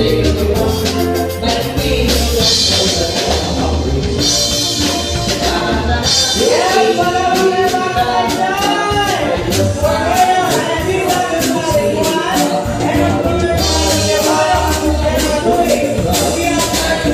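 Live band playing kuratsa dance music with a steady beat, and a singer's voice joining in about six seconds in.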